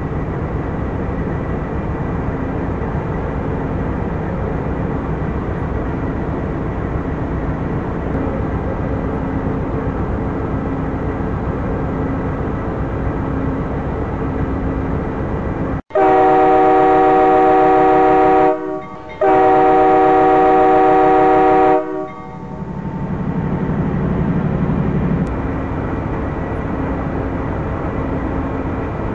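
Amtrak GE P42DC diesel-electric locomotive idling with a steady hum, then its air horn sounds two long blasts about sixteen seconds in, the signal that the train is releasing brakes and about to pull out. The engine rumble carries on after the horn.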